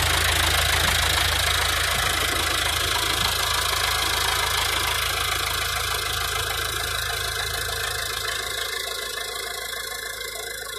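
Tractor diesel engine running steadily, growing quieter over the last few seconds.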